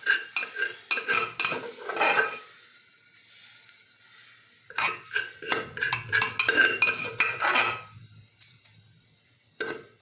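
Metal spoon clinking and scraping against a stainless steel bowl in two bursts of quick strokes, the steel ringing briefly after each.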